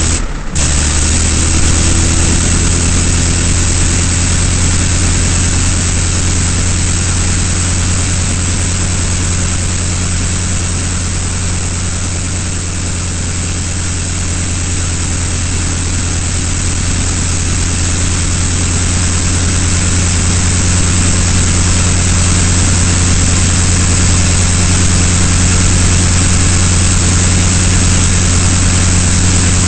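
Aircraft engine droning steadily in flight under heavy wind and propeller rush. The sound breaks off for a moment just after the start.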